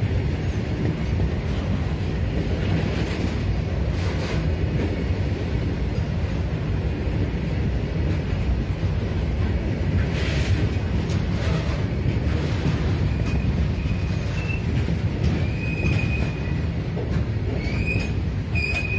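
Open-top freight wagons of a long goods train rolling past close by: a steady rumble and rattle of wheels on rail, with a few brief clanks. From about two-thirds of the way through, a thin high wheel squeal comes and goes, more often near the end.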